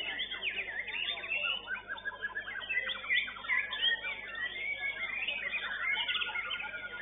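White-rumped shama (murai batu) singing: a dense, unbroken stream of rapid, varied whistles, glides and chirps.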